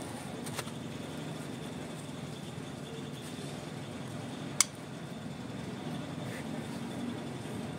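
Steady low background hum, with one sharp click a little past the middle and a faint click near the start.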